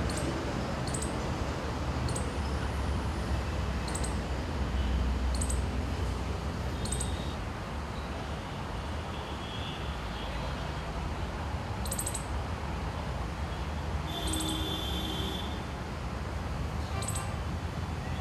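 Five-striped northern palm squirrel giving short, sharp, high-pitched squeaks, one every second or two with a pause of several seconds midway, over a steady low rumble of traffic.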